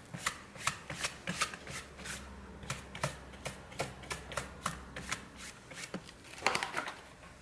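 Quick, irregular scratches and light clicks of a small tool scraping leftover broken screen glass off an iPhone 5c's frame, several strokes a second.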